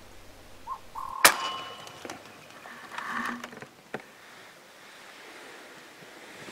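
A single sharp shot from a .22 Umarex Gauntlet regulated PCP air rifle about a second in, followed by a fainter click near four seconds.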